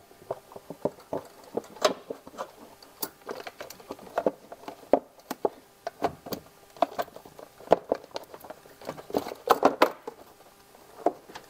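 2nd-generation Honda Ridgeline's plastic battery cover being worked down into its snug-fitting housing over the battery: irregular hard plastic clicks, knocks and scrapes. There is a burst of louder knocks about three-quarters of the way through as it is pressed home.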